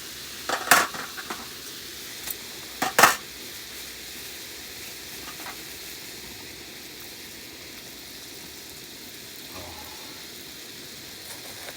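Food sizzling steadily in a hot pan, with a loud clatter of a utensil against the pan about a second in and again about three seconds in.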